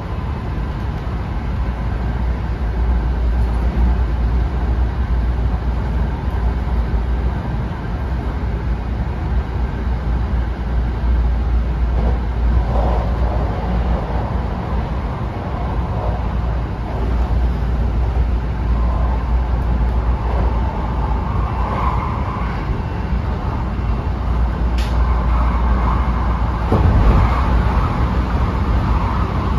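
Interior running sound of a Hankyu 9000-series electric train car with Toshiba IGBT-VVVF traction equipment, running at speed: a steady rumble of wheels on rail with faint steady motor tones. There is a short sharp tick about 25 seconds in.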